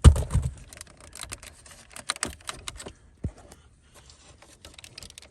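Irregular small clicks and taps of a Torx driver backing out a T20 screw from plastic console trim, with a knock right at the start.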